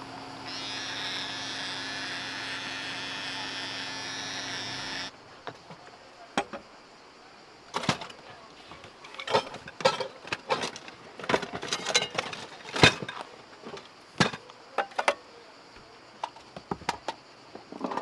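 A small electric motor buzzing steadily stops suddenly about five seconds in, followed by a run of irregular clicks and knocks.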